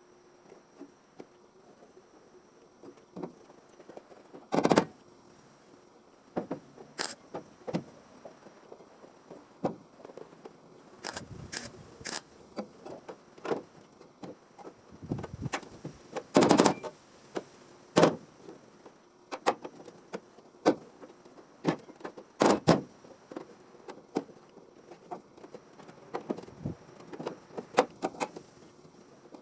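Irregular knocks, taps and clicks of hand work in a garage, a dozen or more, unevenly spaced, with a louder knock about 4 seconds in and another about 16 seconds in, over a faint steady hum.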